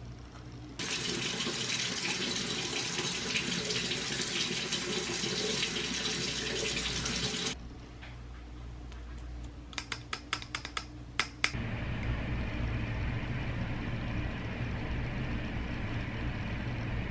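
Tap water running into a sink for about seven seconds, then stopping. A quick run of sharp clicks follows, and a lower, steady rushing noise with a hum sets in about two thirds of the way through.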